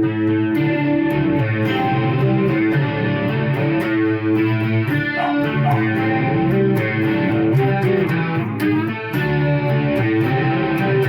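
Electric guitar played through a Marshall MG100HFX amp with its chorus effect on, giving a doubled, shimmering tone. The guitar picks a song-like riff of overlapping, sustained notes.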